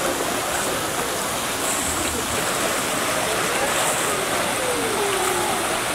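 Pool water churning and sloshing steadily as a young elephant bull swims underwater, stirring the surface into foam.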